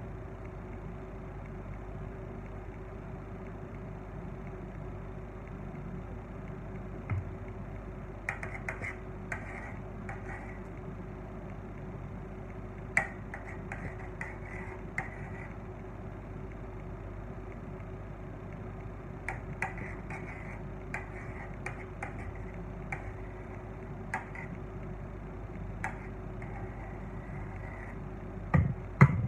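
A metal spatula clicking and scraping against a stainless steel cake turntable while spreading buttercream: scattered light clicks in a few clusters, the loudest pair near the end, over a steady mechanical hum.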